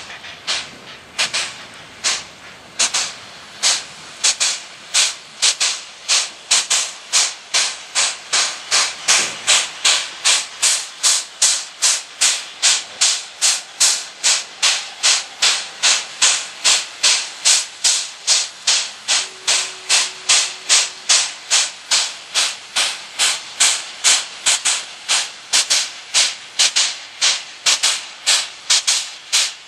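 PKP class Pt47 steam locomotive Pt47-65 chuffing as it works its passenger train: sharp exhaust beats from the chimney that quicken over the first few seconds, then hold a steady rate of about two and a half a second.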